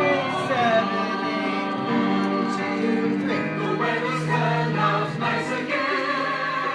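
Music with a choir singing sustained notes over accompaniment.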